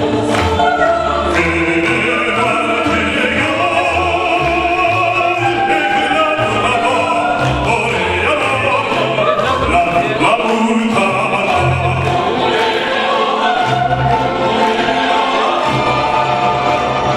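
Operatic vocal music: classically trained voices singing with vibrato over an instrumental accompaniment with a steady beat.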